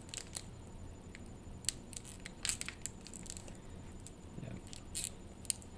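Foil Pokémon booster pack wrapper being handled and worked open: faint, scattered crinkles and small ticks of the foil, a pack that is hard to tear open.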